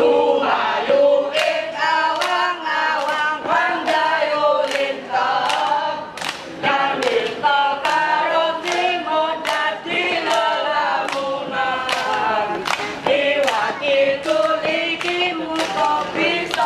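A scout troop of young voices singing a yel-yel cheer-song together in unison, with regular sharp hits such as claps or stomps keeping time.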